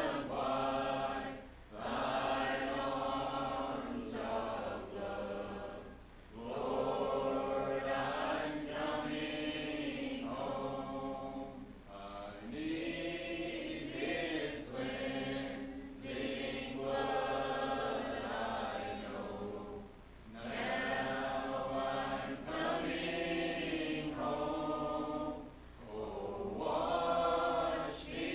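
Congregation singing a hymn in unaccompanied four-part harmony, the song of invitation at the close of the sermon, in long held phrases with brief breath pauses between lines.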